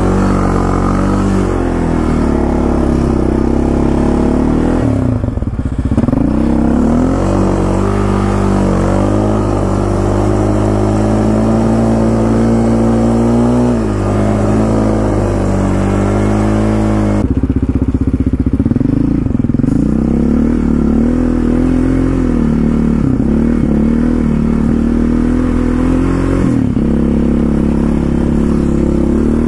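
Yamaha Raptor 700R quad's single-cylinder four-stroke engine running under way, its note dipping and climbing again several times with the throttle. There is a clear drop about seventeen seconds in.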